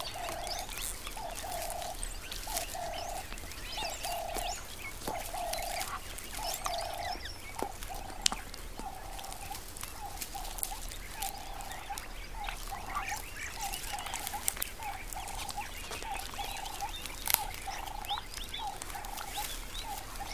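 West African giraffe browsing a thorny tree, with scattered crackles and snaps of twigs and leaves as it strips them. Behind it runs a train of short, mid-pitched animal calls, a little more than one a second at first, then shorter and quicker.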